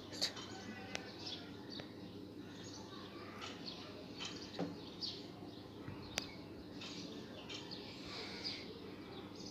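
Small birds chirping in the background, with a few sharp clicks of fingernails pinching nits out of hair.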